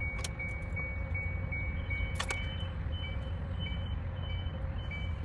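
Rapid series of short, high electronic warning beeps, about three a second, over a steady low rumble. About two seconds in, the beeps change to a higher pitch, with a sharp click at the change.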